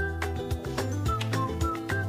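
Background music with a steady beat, held bass notes and short high melody notes.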